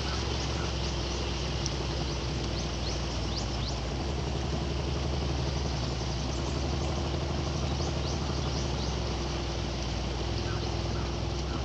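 Motorboat engine running steadily: a low, even drone with a hum, over a haze of water and wind noise. A few short, faint high chirps come through now and then.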